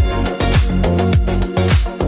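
Background dance music with a steady beat: a deep kick drum about twice a second under sustained synth chords.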